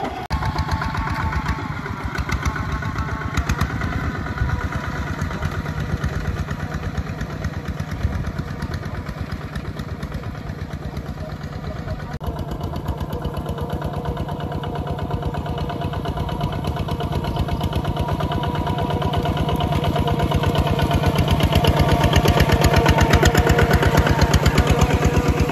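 Single-cylinder diesel engine of a two-wheel walking tractor running steadily under load as it pulls a disc plough through wet soil, its rapid even firing pulses getting louder over the last few seconds.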